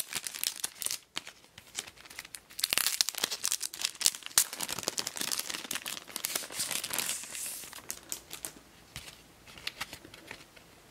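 Plastic packaging crinkling and crackling as it is pulled off an item by hand, in a run of quick, irregular crackles that are busiest in the middle and thin out near the end.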